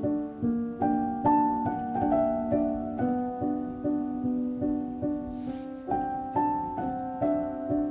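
Instrumental background music: a gentle melody of plucked notes, each struck and fading, in an even rhythm.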